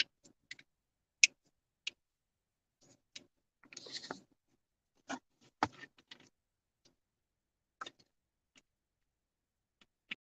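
Faint, scattered clicks and light knocks, about a dozen in all, with a short rustle about four seconds in.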